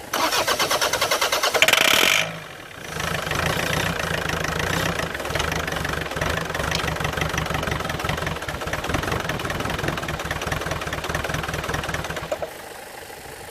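Land Rover Freelander 2.0 TD L-series diesel engine cranked on the starter for about two seconds, then firing and running for about nine seconds before it dies away near the end. It is running on squirted starting spray, with air leaking into its fuel pipes starving it of diesel.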